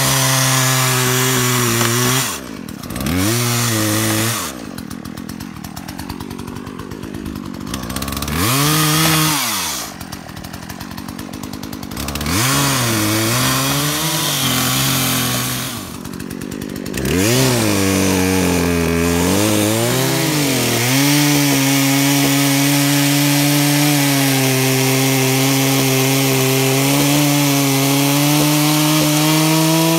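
Chainsaw cutting through a fallen log. The motor's pitch sags as the chain bites into the wood, and it winds down and speeds up again several times before running steadily through the last dozen seconds.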